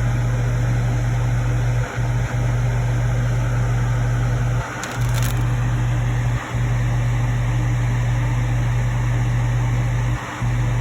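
Steady low electrical hum that cuts out briefly a few times, with a short sharp scrape or click about halfway through.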